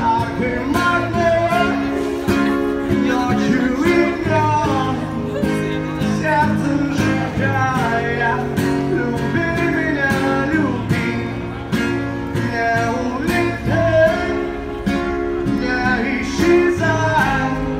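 A man singing and strumming an acoustic guitar, amplified through a portable loudspeaker.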